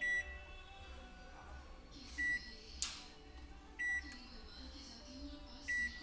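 Haier microwave oven's control panel beeping as its touch buttons are pressed: four short, high beeps a second or two apart. A sharp click comes about three seconds in, over a low hum.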